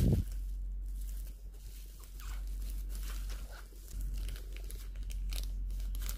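Plastic packaging, first bubble wrap and then a thin clear plastic sleeve, crinkling and rustling as it is pulled open and slid off a small phone by hand. Irregular crackles, loudest right at the start.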